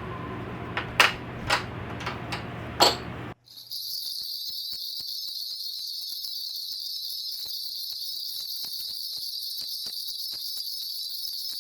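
A few sharp knocks or taps over a low room hum, then, after an abrupt cut, a steady high-pitched chirring like a chorus of crickets.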